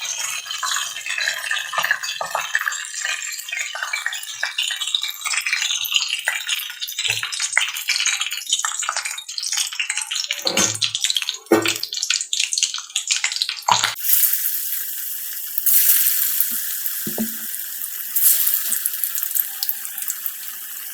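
Masala-coated fish pieces frying in hot oil in a kadai: irregular crackling and spattering with a few dull knocks. About 14 seconds in it changes to a steadier, louder sizzling hiss.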